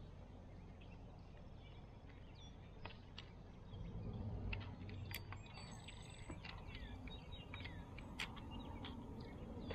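Faint, scattered bird chirps and calls over a low background rumble, with a few small clicks.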